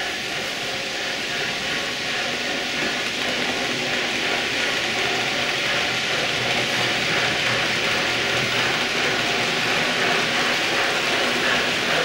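H0-scale model freight train, a diesel locomotive hauling tank wagons, running along the layout's track: a steady mechanical running noise of wheels on rails that grows gradually a little louder.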